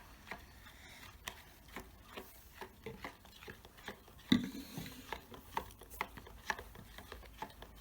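A spoon stirring a slime mixture of coloured glue, water and liquid borax in a container: irregular light clicks and scrapes of the spoon against the container, with one louder knock about four seconds in.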